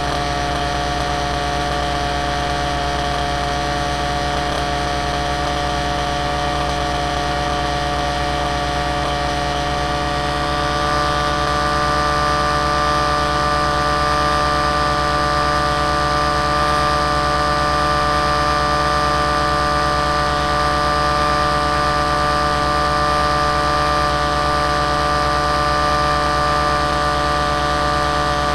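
Aircraft motor running steadily in flight, heard from on board as a steady hum of several tones. About ten seconds in it gets slightly louder and a higher tone comes in.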